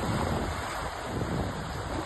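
Sea surf washing steadily, a continuous rushing noise with a rumbling low end that eases slightly over the two seconds.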